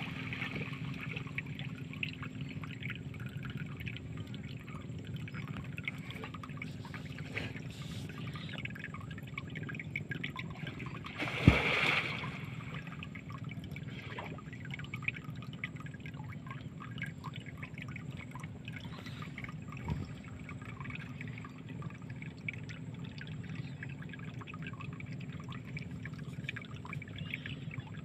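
Shallow lake water lapping and trickling among water hyacinth beside a wooden boat, with small scattered ticks and a faint steady hum underneath. One louder splash comes about eleven seconds in.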